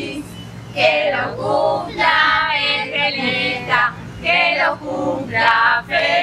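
A song sung by several voices together, in short phrases with brief breaks between them.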